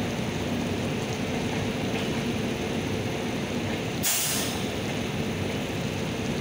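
Express train coaches rolling slowly into the platform with a steady rumble, and a short sharp hiss of air brakes about four seconds in.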